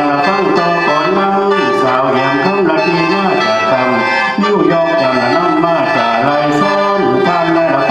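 Lao khaen, a bamboo free-reed mouth organ, playing a continuous drone-backed melody, with a man singing mor lam in long sliding, bending vocal lines over it.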